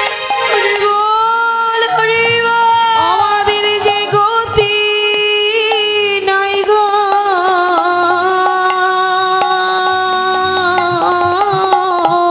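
Bengali kirtan singing: a woman's voice holds long, slowly sliding notes over instrumental accompaniment, with drum strokes.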